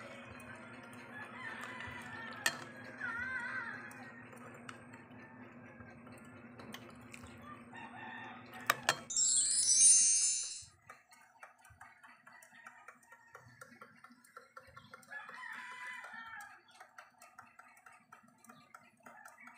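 Faint animal calls with a wavering pitch, once about three seconds in and again near sixteen seconds, over a low steady hum and faint music. A couple of sharp clicks and then a short loud hiss come about nine to ten seconds in.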